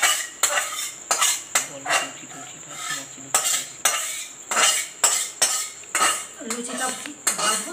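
Metal spatula scraping and knocking against a metal karai as thick chickpea curry is scraped out into a steel bowl, in repeated sharp strokes about two a second.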